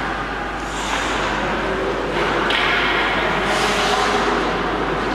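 Hockey skate blades carving and scraping on rink ice in a run of hissing swishes, the strongest about two and three and a half seconds in, over steady rink noise.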